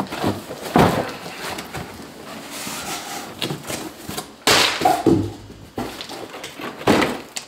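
Cardboard box being opened and handled: flaps and packaging scraping and rustling, with several knocks and a longer sliding scrape a little past halfway.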